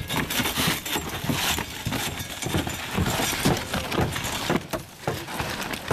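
Roof tear-off work on wooden decking: irregular knocks, scrapes and clatter of hand tools as old roofing and nails are pulled up.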